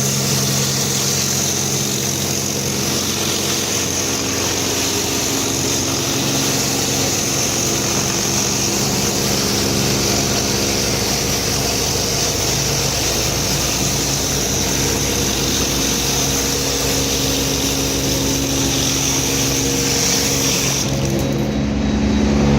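High-pressure washer running steadily with the hiss of a rotary surface cleaner's cold-water jets at 250 bar and 21 litres a minute sweeping a concrete floor. The spray cuts off about a second before the end, leaving the machine's engine running on its own.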